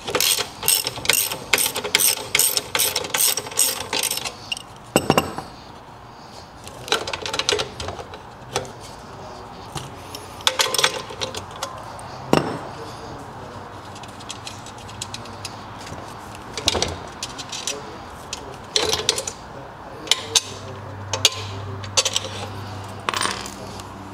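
Socket ratchet clicking in a quick, even run for the first four seconds or so as a nut is turned off a bolt. Then come scattered clinks and knocks of small metal parts and tools being handled.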